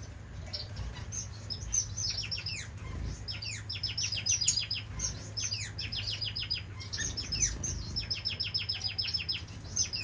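Caged finches chirping: short high notes, scattered at first, then from about three seconds in coming in fast runs of rapid repeated notes. A faint low steady hum lies underneath.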